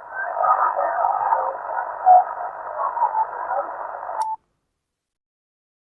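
Amateur-radio HF SSB receiver audio from a transceiver's speaker: band noise with faint, unintelligible voice fragments, squeezed into a narrow telephone-like passband. About four seconds in there is a click and the sound cuts off to silence.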